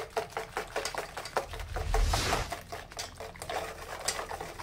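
Wire balloon whisk beating runny cake batter in a stainless steel bowl: a fast, even run of wet strokes with the wires clicking against the bowl, several a second, with a brief louder swell about two seconds in.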